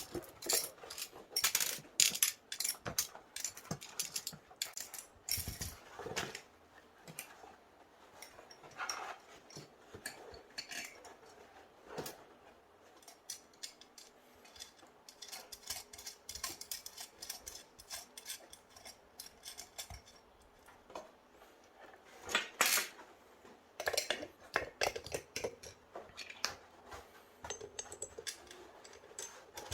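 Candies clattering into a gumball machine's globe as it is filled: irregular clicks and rattles, with louder bursts of clatter a little past the middle.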